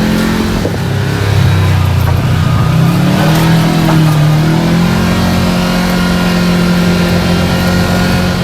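Kawasaki KRX 1000 side-by-side's parallel-twin engine running on a trail, its note dipping and rising a couple of times in the first half, then holding steady.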